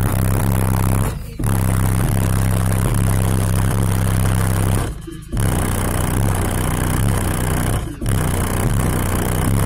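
Car audio system playing bass-heavy music at high volume, the subwoofers' deep bass notes dominating and the recording overloaded. It breaks off briefly about a second in, about five seconds in and again about eight seconds in.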